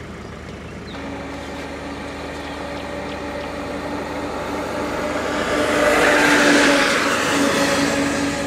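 Motor vehicle engine running with a steady hum, growing louder to a peak about six to seven seconds in, then easing slightly.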